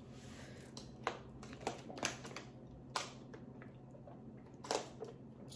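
Faint eating and food-handling noises: a handful of sharp clicks and squishy taps at uneven gaps, over a low steady hum.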